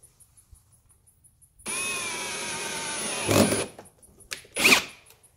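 Ryobi cordless drill running for about two seconds as it drills a hole through the fender flare into the vehicle's guard panel, louder for a moment near the end of the run. A second short burst of the drill follows about a second later.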